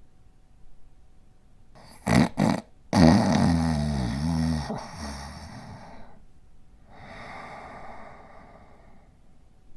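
Sleeping border collie snoring: two short snorts about two seconds in, then a long snore lasting about three seconds, followed by a softer breath out.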